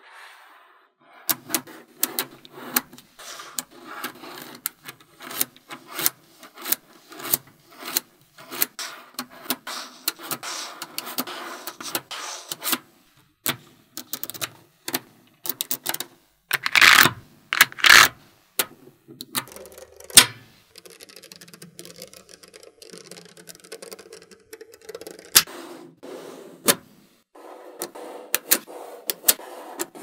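Small magnetic balls clicking and snapping together as they are placed, a run of sharp, irregular clicks with softer rubbing between. Two louder clatters come a little past the middle.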